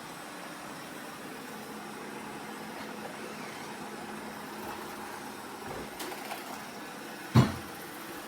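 Steady whirring hum of a robot vacuum running, with a single loud thump about seven seconds in.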